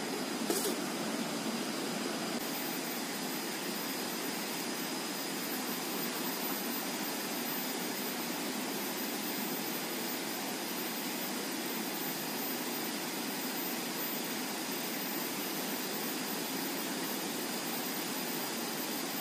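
Steady rushing of river water flowing past, an even noise with a faint steady high tone underneath. A short sharp knock sounds about half a second in.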